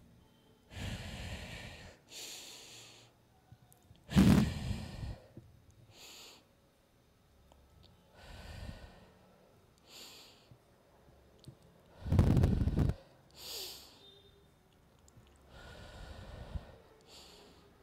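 A woman's breathing picked up close by her handheld microphone: a series of in- and out-breaths, with two louder breaths, about four and twelve seconds in, that hit the microphone.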